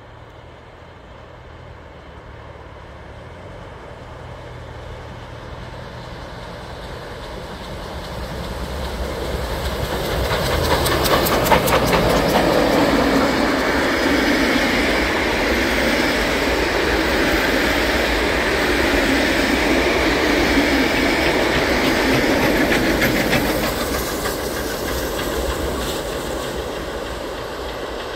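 A steam-hauled passenger train passing close by: it grows louder as it approaches, is loudest for about twelve seconds as the wooden carriages go past with wheel clatter over the rail joints, then fades as it moves away.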